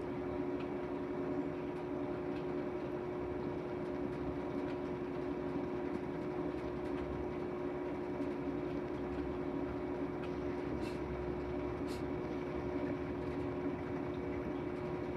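Whirlpool 22 kg washing machine in its spin cycle: a steady hum with constant whining tones, holding speed throughout, with two faint ticks near the end.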